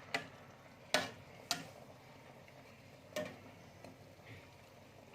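About four sharp, irregularly spaced clinks of a cooking utensil knocking against a pot, with a low hiss beneath.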